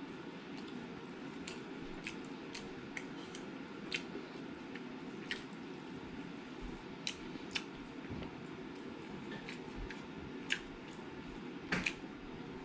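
Eating with the hands: scattered short wet clicks and squishes from chewing and from fingers tearing curried pork and working rice, over a steady low hum.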